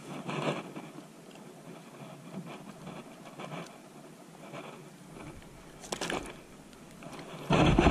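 Faint scrapes and rustles of gloved hands handling a small snook and its soft plastic lure, with a couple of slightly louder scrapes, one at the start and one about six seconds in. Near the end, a sudden loud, deep rumble of wind on the microphone.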